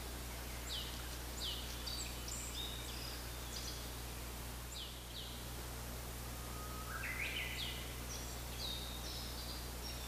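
Songbirds singing in overlapping phrases of quick, high, downward-sweeping notes, with a run of notes stepping upward in pitch about seven seconds in.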